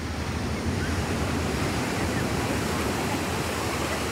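Ocean surf breaking and washing up the beach: a steady, even rushing noise.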